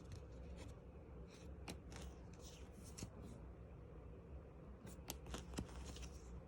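Faint rustling of Pokémon trading cards and their packaging being handled, with a few light, sharp ticks.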